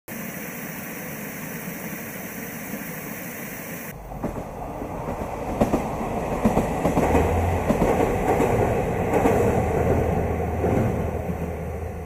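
Water pouring steadily from stone weir outlets, then, from about four seconds in, a train approaching over a railway bridge: a low rumble with rattling wheel clicks that grows louder and holds for several seconds.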